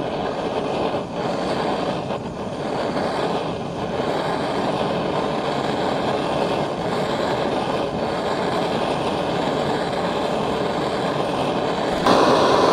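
Blow lamp flame burning with a steady hiss, heating a bent steel side-stand part toward red heat.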